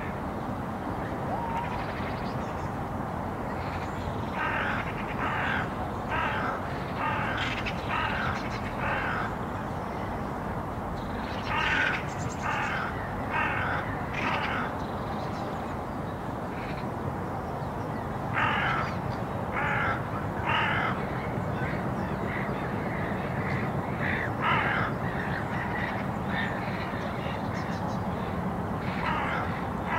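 A crow cawing in bouts of several short calls, about two a second, with pauses of a few seconds between bouts, over steady background noise.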